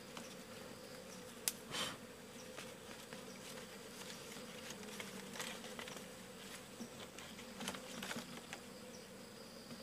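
A colony of Asian honeybees (Apis cerana) humming steadily while being smoked out of their nest. A few faint clicks sound over it, the sharpest about one and a half seconds in.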